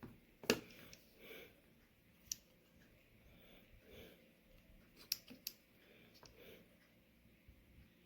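A few sharp clicks and light knocks at irregular intervals, with softer handling noise between, as of small objects being handled.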